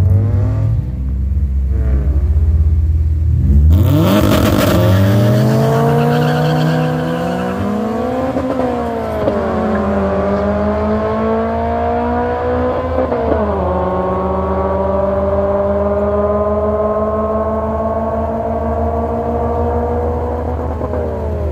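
Two street-race cars, a Honda Civic hatchback and an Integra, launching side by side from a standing start: a heavy low engine rumble at the line, a sudden loud burst of noise as they launch about four seconds in, then engine notes climbing hard through the gears and dropping back at upshifts about eight and thirteen seconds in and again near the end.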